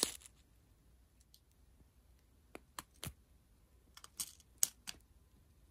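About half a dozen light, sharp clicks and taps, starting about two and a half seconds in, as small plastic bags of resin diamond-painting drills are handled and set down.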